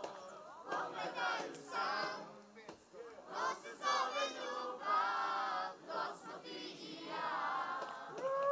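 Concert audience singing and shouting together, in uneven bursts with short gaps.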